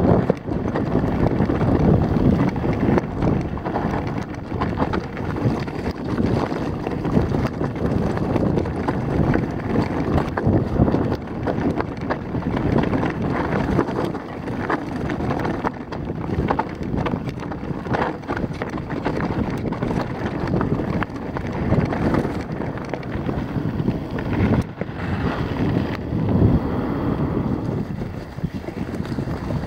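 Wind rushing over the microphone as a mountain bike descends at speed, with frequent knocks and rattles from the bike jolting over the rough, stony trail.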